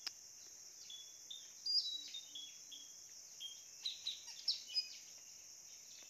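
Blue-rumped parrot (nuri tanau, locally puling) calling as a decoy to lure wild birds: a quick run of short, high chirps and squeaks, some dropping in pitch, loudest about two seconds in and again between four and five seconds. A steady high insect hiss runs underneath.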